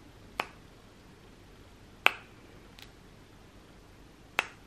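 Metal snap clips on a clip-in hair extension weft being popped open one after another: four sharp clicks, the third fainter, spaced one to two seconds apart.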